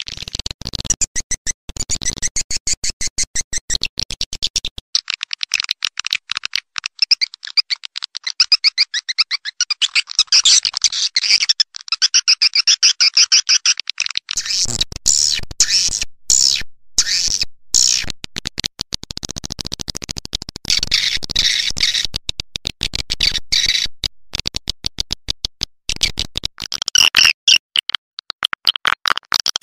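Swiftlet call-sound recording, a lure played to draw swiftlets to a nest house: a fast, unbroken stream of high chirps and twitters. The chirping turns lower and fuller for stretches about halfway through and again near the end, with brief gaps in the middle.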